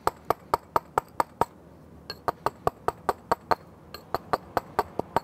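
Steel chisel being struck with a mallet, cutting into sandstone: sharp clinking taps about four or five a second, in runs broken by short pauses about one and a half and four seconds in.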